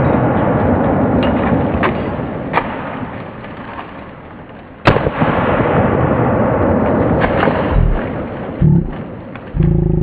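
Gunfire from a Hi-Point 995 TS 9mm carbine, apparently slowed down. A shot about five seconds in becomes a deep, drawn-out boom that fades over several seconds, following the long tail of a shot just before. A few small clicks sound between them, and a short low drone comes near the end.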